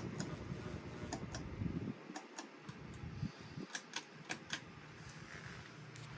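CEC ceiling fan running on high speed with a low, uneven rumble, overlaid by a dozen or so irregular sharp clicks, most of them in the first half and in a burst past the middle.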